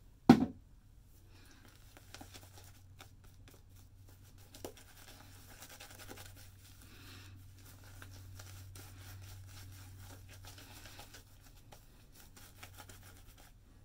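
Synthetic shaving brush working lather over the face and stubble: faint, rapid scratchy brushing strokes. A brief thump comes at the very start.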